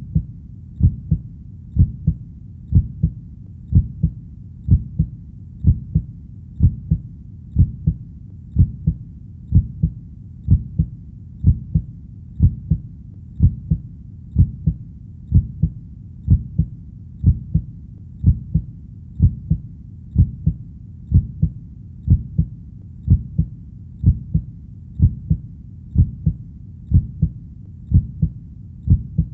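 Heartbeat beating steadily in double 'lub-dub' thumps, about one beat a second, over a faint low hum.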